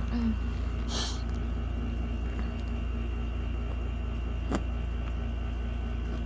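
Steady low hum of a machine running in the room, with a short hiss about a second in and a faint click about four and a half seconds in.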